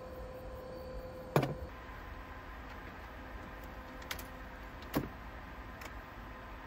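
A wooden slide-out drawer being pulled out on metal drawer slides from under a van's bed platform. There is a sharp knock about a second and a half in, and another knock about five seconds in.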